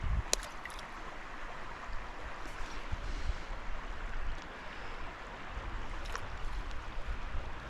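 Creek water running steadily, with one sharp click about a third of a second in and a low rumble underneath.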